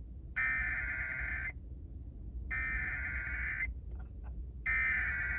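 Emergency Alert System SAME header: three identical bursts of warbling digital data tones, each about a second long with about a second's gap between them. The header encodes the alert, here a flash flood warning, ahead of the attention tone and spoken message.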